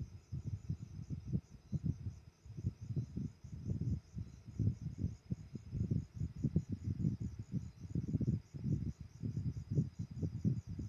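Crickets chirping in a steady, evenly pulsing high trill, over irregular gusts of wind rumbling on the microphone, the gusts being the loudest sound.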